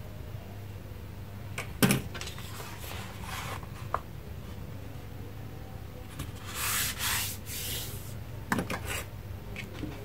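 Pencil compass drawing circles on paper: a scratchy rubbing stroke lasting about a second past the middle. A sharp knock on the tabletop comes about two seconds in, with lighter taps later.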